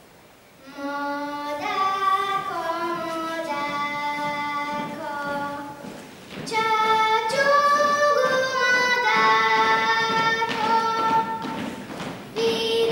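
A young female voice singing a slow melody in long held notes. The singing breaks off briefly about six seconds in, then comes back louder.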